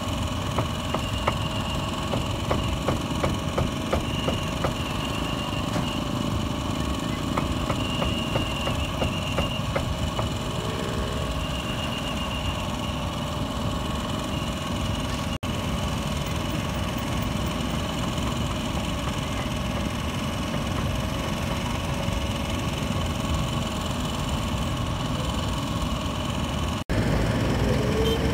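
Steady engine noise of idling street traffic, with a run of sharp knocks over the first ten seconds or so.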